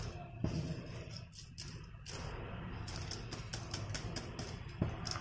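Soaked basmati rice being tipped from a stainless steel mesh strainer into a pot of boiling water: grains pattering into the water, with scattered clicks and taps of the strainer on the pot and a knock about half a second in and another near the end.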